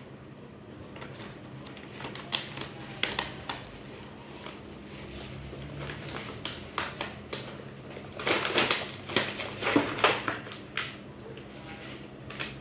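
Irregular clicks, taps and crinkles of a small toy and its plastic packaging being handled and opened, busiest a little past the middle.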